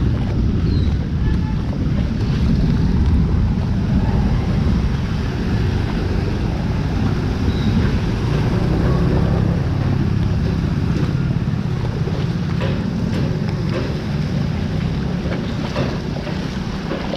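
Wind buffeting a GoPro's microphone as a steady, heavy low rumble, with a few sharp ticks in the second half.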